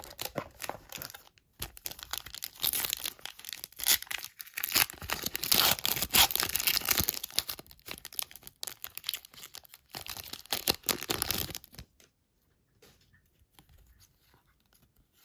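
A trading card pack wrapper being torn open and crinkled: a dense crackling and tearing that runs for about twelve seconds and then stops.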